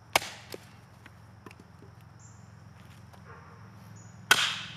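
Aranyik cane machete, a heavy Thai-made chopper, chopping into a tree branch laid on a wooden stump. There are two sharp chops, one just after the start and a louder one near the end, with lighter knocks in between.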